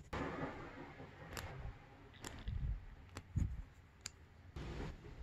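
Small throttle parts of plastic and metal being handled by hand: a brief rustle, then several light, separate clicks with a couple of soft knocks, all faint.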